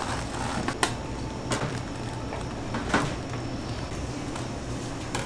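A few sharp clacks and knocks, about four, spread over a steady low hum.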